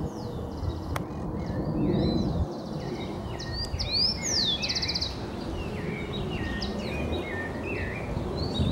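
Several songbirds calling in the trees: a busy mix of short whistled notes sliding up and down, with a few quick trills. Under them runs a steady low rumbling noise.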